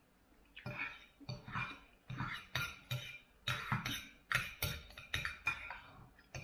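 A metal fork clinking and scraping against a ceramic plate while eating fried noodles, with short sharp strikes coming two or three a second after a quiet first moment.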